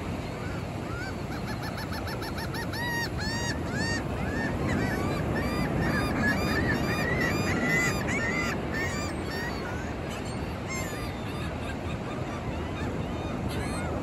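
Seagulls calling, a quick run of short, arched, honking calls that pile up between about one and nine seconds in, then only a few stray calls, over the steady wash of ocean surf.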